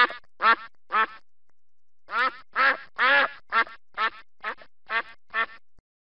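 Duck quacking: a few quacks about half a second apart, a pause of about a second, then eight more in a quick even run that cuts off suddenly near the end.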